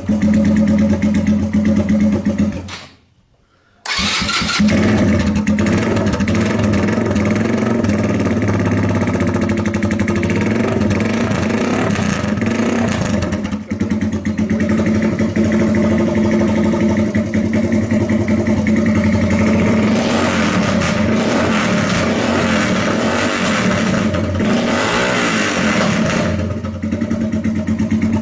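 Single-cylinder motorcycle engine running loud through an aluminium Roncar SS muffler whose glass-wool packing has burned away, so the silencer does almost nothing. The sound drops out for about a second around three seconds in, then runs on, growing harsher for several seconds about twenty seconds in.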